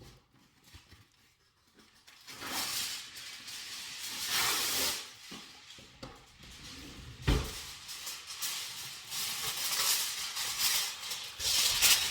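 Aluminium foil being handled and crinkled over a baking dish, in stretches of crackly rustling, with one dull thump about seven seconds in.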